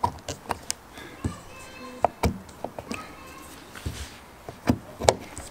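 Irregular clicks and knocks of hands working a framed object box: metal retaining clips being bent back and the solid wooden frame and glass being handled, the loudest knocks near the end.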